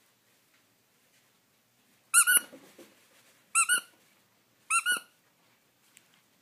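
A squeaky dog toy squeaking three times, each a quick double squeak, a little over a second apart.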